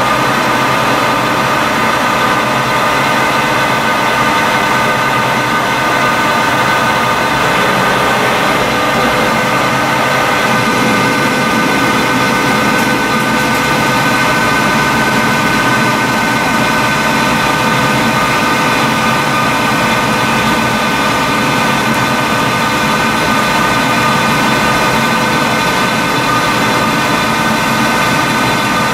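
Proturn 1745P CNC centre lathe running, a steady mechanical whine of several held tones over a hum, unchanging throughout.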